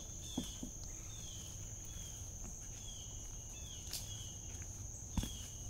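Steady high-pitched insect drone with short falling chirps about once a second, over which two young Nigerian Dwarf buck goats sparring make a few dull thumps. The loudest thump comes about five seconds in, as they come down from rearing and butt heads.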